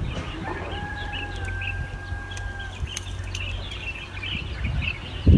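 A rooster crowing once, a single long held call of about two seconds that rises briefly at its start, over faint scattered chirps of small birds or insects.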